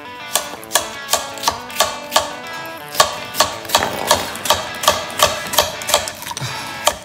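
Background music with a steady, quick beat of about three sharp strokes a second and pitched notes between them.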